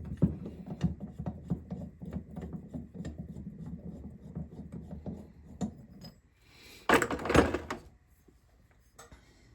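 Valve spring compressor being backed off a motorcycle cylinder head after the valve keepers are set: irregular clicks and rubbing of metal tool against metal for about six seconds, then a short harsh scrape about seven seconds in.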